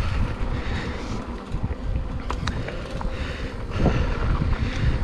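Wind buffeting the microphone while riding a mountain bike down a dirt trail, with the rumble of the tyres on the ground and a few sharp clicks from the bike.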